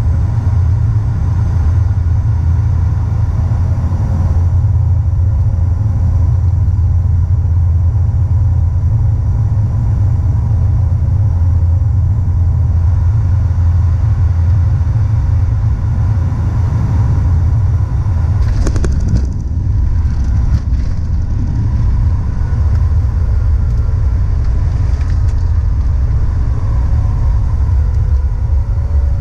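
Inside the cabin of a De Havilland Dash 8 Q400 turboprop landing: the steady low drone of its Pratt & Whitney PW150A engines and propellers. About two-thirds of the way through, a sharp thump marks the wheels touching down, and the engine pitch then shifts as the plane rolls out on the runway.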